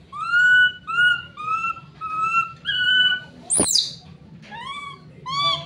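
Baby macaque crying in fear: a run of short, high calls, each rising then levelling off, about two a second, broken about three and a half seconds in by one sharp shriek that sweeps steeply up.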